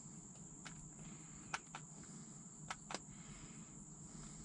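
Crickets chirring in a steady high buzz, faint under a low background hum, with a handful of light, sharp clicks about a second to three seconds in.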